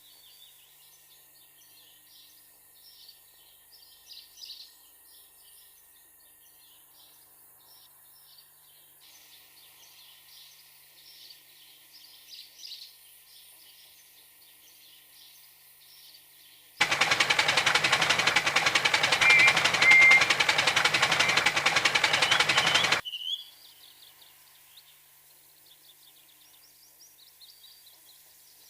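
Faint birdsong ambience of chirps and tweets. About two-thirds of the way through, a loud, harsh rushing hiss starts suddenly, runs for about six seconds and cuts off, leaving the birdsong again.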